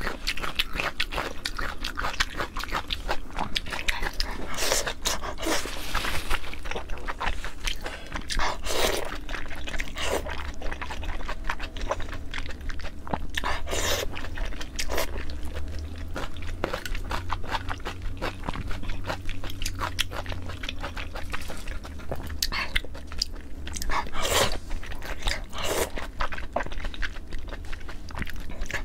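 Close-miked mouth sounds of eating braised pork intestine: chewing and slurping, with a dense, irregular run of wet smacks and clicks.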